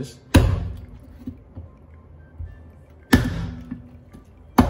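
Kitchen knife chopping through a red sea bream's backbone onto a wooden cutting board: three sharp chops, the last two close together.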